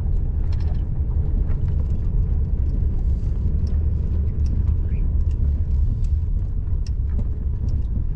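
A vehicle's engine and road rumble heard from inside the cab as it drives, with scattered light clicks and ticks.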